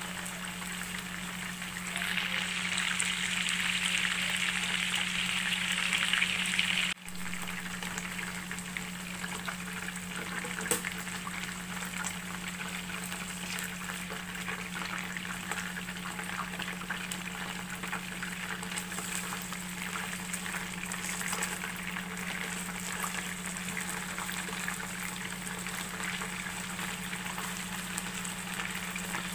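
Chicken drumsticks sizzling and crackling as they fry in a nonstick pan with barbecue sauce, with now and then a light tap or scrape of metal tongs turning the pieces. The sizzle is louder from about two seconds in and drops off abruptly about seven seconds in. A steady low hum runs underneath.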